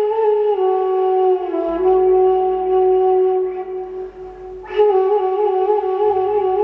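Crystal flute playing slow, long-held notes that step down in pitch. A fresh breathy note begins near the end and wavers with vibrato, over a soft low drone.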